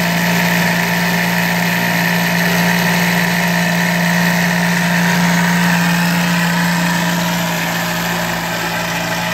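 CNC needle cutter running as its reciprocating needle cuts 3 mm Depron foam: a steady mechanical buzzing hum, a little quieter in the last two seconds.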